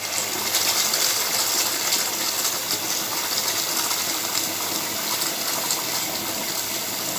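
A water tap running steadily, water gushing out in an even stream.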